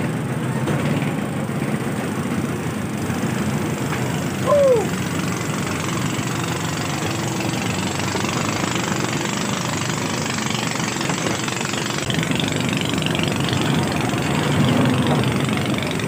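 Boat engine running steadily. About four and a half seconds in, a short falling tone, like a brief whistle or call, sounds over it.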